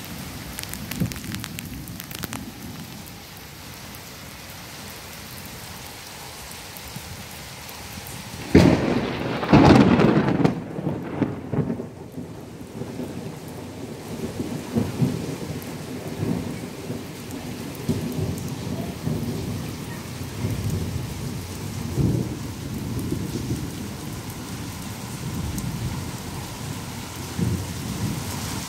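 Heavy rain falling steadily on a flat concrete rooftop. A loud thunderclap breaks in about eight seconds in, lasting a few seconds, followed by low rumbling on and off.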